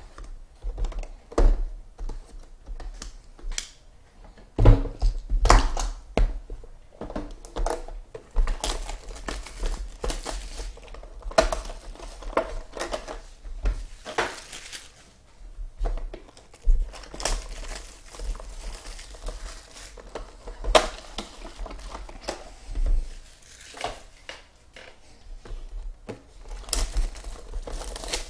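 Crinkling and tearing of plastic wrap being pulled off sealed trading-card boxes, with irregular knocks and rustles as the cardboard boxes are handled.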